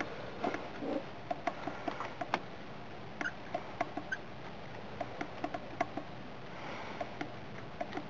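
Light, irregular clicks and ticks, a few a second, of a small Allen key working the set screw on a chrome battery terminal as a wire is tightened into it.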